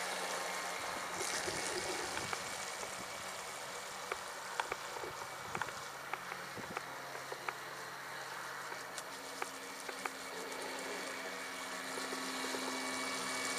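Distant, thin buzz of the Red Dolphin RC boat's small electric motor running on a Ni-Cd battery pack, its pitch shifting about nine seconds in, with a few faint clicks.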